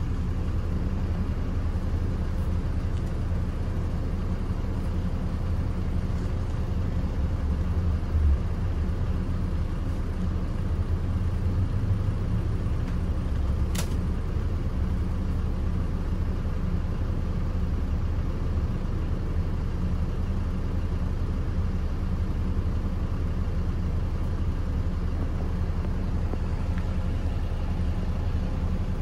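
Hong Kong minibus engine and road noise heard from inside the cabin: a steady low rumble, with a single short sharp tick about halfway through.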